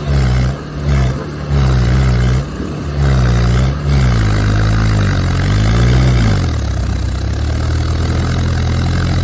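Diesel tractor engine revved hard in repeated surges while the tractor is bogged in mud and being towed out, then dropping to a steady lower running speed about two-thirds of the way through.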